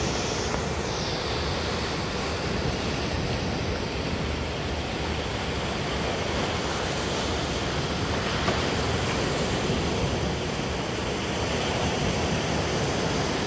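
Small waves breaking and washing up on a sandy shore: a steady rush of surf.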